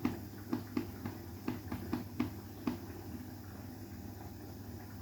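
Front-loading washing machine on its final rinse with two pillows in the drum: quick, irregular soft knocks and splashes several times a second over a steady low hum, the knocking stopping about two and a half seconds in and leaving only the hum.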